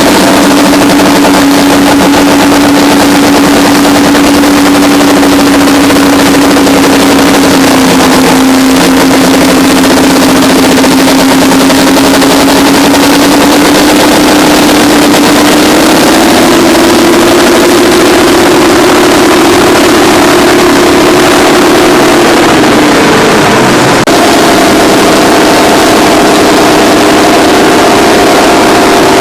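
Twin Detroit Diesel 6-71N two-stroke engines of a Terex 82-80 bulldozer working, a loud steady drone. The pitch rises a little about halfway through, sags briefly near the end, then picks up again.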